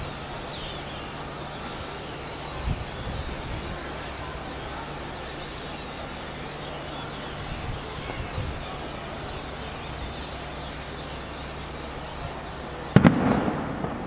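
A large flock of small birds calling overhead: many faint, short, high chirps over a steady low hum of city traffic. A sudden loud bang with a rumbling tail about a second before the end.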